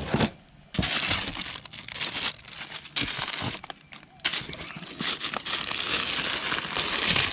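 Crinkling and rustling of a roll of sound deadening material being handled, in uneven stretches with short pauses.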